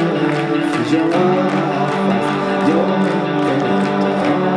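Live song: a guitar strummed in a steady rhythm under a man's singing voice.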